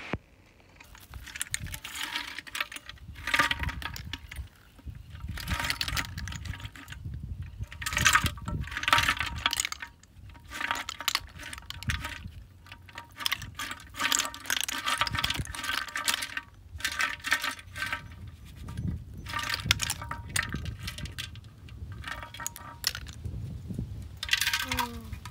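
Snail shells clinking and rattling against each other and against a pot as live snails are shaken out into a woven bamboo basket, in repeated bursts of a second or two.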